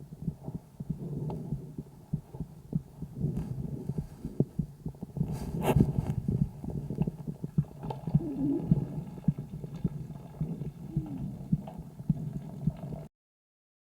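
Lung and heart sounds from the left side of a sick calf's chest, picked up through a homemade stethoscope microphone on the sixth day of illness: a low breathing and heartbeat rumble with many short knocks. A louder scrape-like knock comes about six seconds in, and the recording cuts off shortly before the end.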